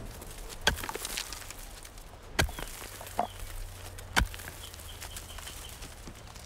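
Three sharp knocks, nearly two seconds apart, with smaller clicks between them. Birds chirp in the background, with a short quick trill about two thirds of the way through.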